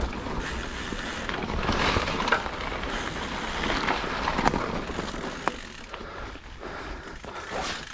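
Downhill mountain bike rolling down a wet, muddy dirt trail: tyre noise with scattered clicks and knocks from the bike rattling over bumps, growing quieter in the second half.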